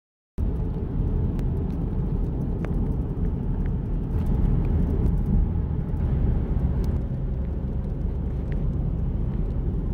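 Steady low rumble of a car driving at road speed, heard from inside the cabin, with a few faint ticks.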